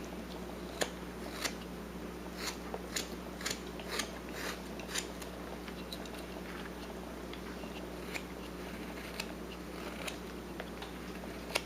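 Carving knife taking small slicing cuts in wood: irregular crisp cuts and snaps, coming quickly for the first few seconds, then more sparsely.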